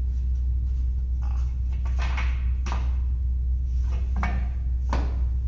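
A handful of short knocks and scrapes as wood and fittings are set in place on a table saw bench, over a steady low hum; the saw itself is not yet running.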